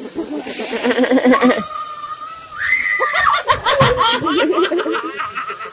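A woman laughing and squealing, with a high held squeal that rises near the middle. A brief hiss of spray from a garden-hose nozzle comes about half a second in.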